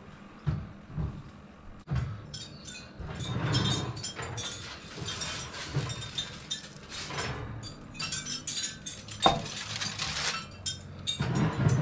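Kitchen handling noises: a run of light clinks and rustling crinkles, with one sharp knock about nine seconds in.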